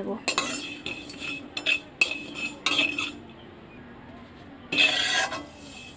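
A metal spatula scraping and knocking across a metal pan, stirring dry-roasted whole spices. There are several short scrapes in the first three seconds, a pause, then one louder scrape near the end.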